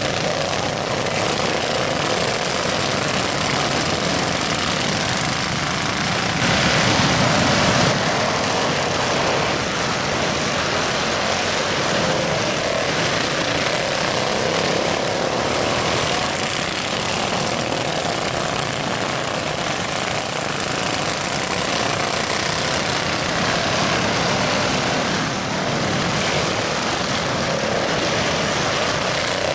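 Small engines of racing lawn mowers running hard at high revs, swelling and fading as mowers go by, loudest about seven seconds in.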